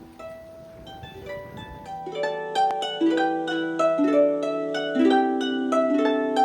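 Background music on a solo plucked-string instrument: a tune of separate plucked notes, sparse at first, then fuller and louder from about two seconds in.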